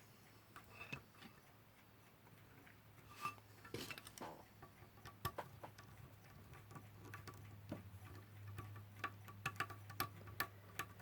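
Faint, irregular small clicks and taps of hands working a wire end into the terminal of a vintage electric alarm clock, coming more often in the second half.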